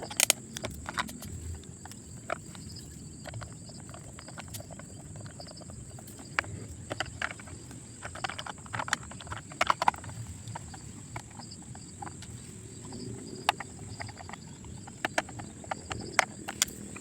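Irregular light clicks and taps of plastic toy excavator parts being handled and snapped together, over a steady faint high-pitched background whine.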